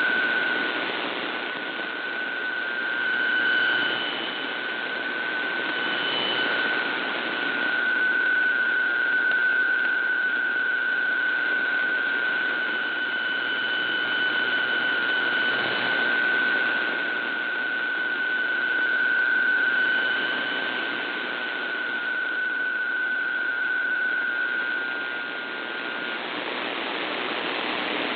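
PSK125R digital-mode data signal from a VOA Radiogram shortwave broadcast, received in AM mode: a steady mid-pitched tone over heavy static hiss, slowly swelling and fading. The tone stops near the end, at the close of the text transmission, leaving only static.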